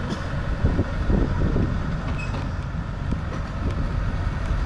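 Tractor engine running as it pulls a hay wagon, with the wagon rolling and rattling along the path: a steady low rumble with small knocks.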